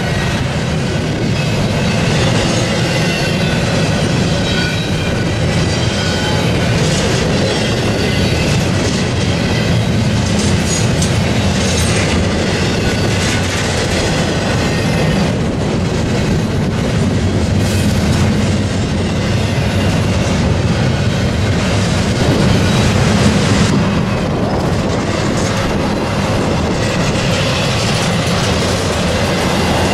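Double-stack intermodal freight train's well cars rolling past at close range: a steady, loud rumble and clatter of steel wheels on rail, with a thin high wheel squeal in the first few seconds.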